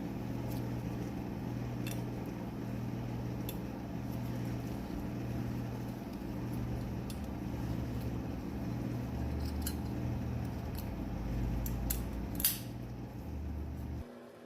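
Light metallic clicks of brake-pad anti-rattle clips being fitted onto a caliper bracket, a few seconds apart, the sharpest near the end, over a steady low hum.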